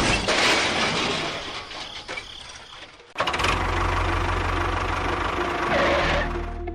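A mechanical rattle fades out; after a brief break about three seconds in, a small engine starts up and runs steadily with an even, fast pulse.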